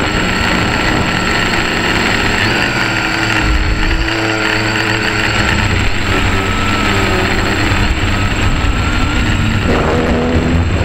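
Quadcopter's four electric motors and propellers buzzing steadily, close to the onboard camera, the pitch rising and falling a little as the craft manoeuvres.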